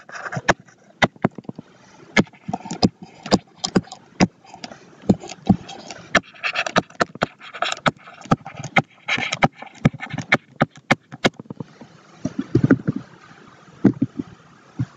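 Stylus tapping and scratching on a tablet screen during handwriting: many sharp, irregular clicks with soft scraping between them, thinning out about eleven seconds in.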